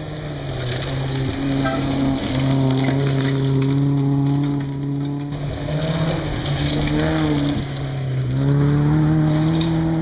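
Engine of a 1400cc-class rally car, held at high revs and coming closer. Its note steps down and climbs again a few times, with gravel hiss under it.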